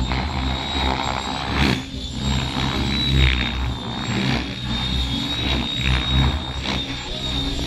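Radio-controlled model helicopter in flight: a steady high-pitched whine over a low rotor thrum, with several whooshing swells as it maneuvers.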